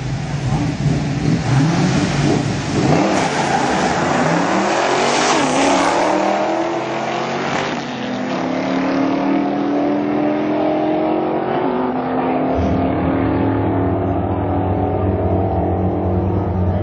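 Drag racing cars launching off the line and accelerating hard down the strip. The engine pitch climbs and drops back with each gear change, then settles into a steadier drone that slowly falls away as the cars run down the track.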